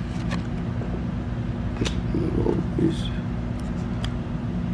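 Steady low background hum, with a few faint clicks as trading cards are flipped by hand.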